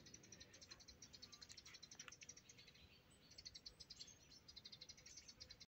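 Near silence: faint outdoor ambience with a quick, steady run of high chirps that breaks off briefly about three seconds in.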